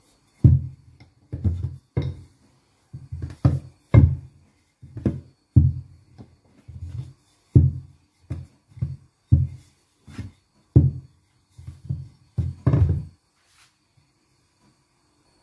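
Wooden rolling pin knocking on the table as dough is rolled out, a run of dull low thumps about twice a second at uneven spacing, stopping a couple of seconds before the end.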